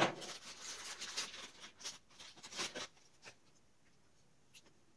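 Small zip-lock plastic bag crinkling and rustling for about three seconds as a laser module is pulled out of it, followed by a couple of light clicks.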